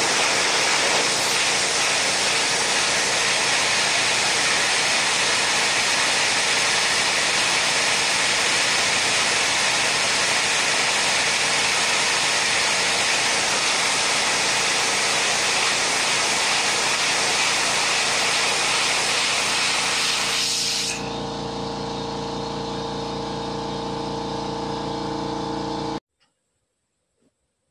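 Air blower running with a loud, steady rush of air, the air jet that floats the marbles. About 21 s in, the rushing stops and a quieter steady motor hum remains. The hum cuts off suddenly near the end.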